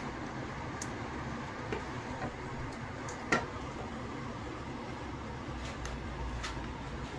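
Wooden spoon knocking lightly against an aluminium cooking pot as chicken masala is spooned onto a layer of rice. There are a few soft clicks and one sharper knock about three seconds in, over a steady low hum.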